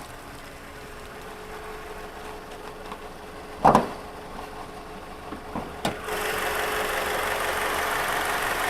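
Honda CR-V engine idling steadily, with no lifter tick: the engine has no hydraulic lifters. A loud thump comes a little before midway and a sharp click just before the engine sound grows louder about six seconds in.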